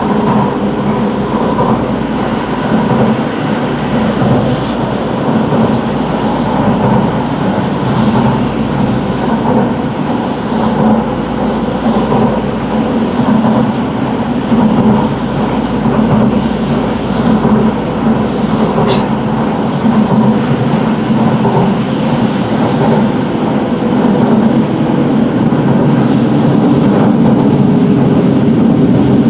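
Running noise heard inside the cabin of a Toei 12-600 series linear-motor subway train travelling between stations: a loud, steady rumble and hiss of wheels on rail, with a few faint steady hums underneath. It grows slightly louder near the end.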